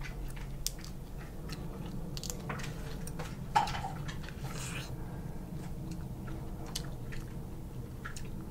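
Close-up eating of boiled crawfish: shells cracking and being peeled by hand, with biting, sucking and chewing at the meat and roe. The sounds are scattered clicks and wet smacks, with a louder one about three and a half seconds in, over a steady low hum.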